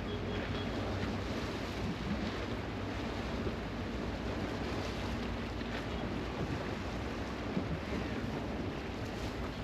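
Sea washing against the shore at high tide, a steady rush of surf mixed with wind buffeting the microphone.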